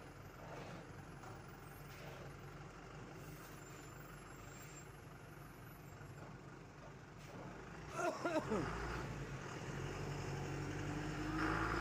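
Goods truck's diesel engine running at low speed while manoeuvring. About eight seconds in comes a brief loud burst that falls in pitch, after which the engine grows louder and rises in pitch.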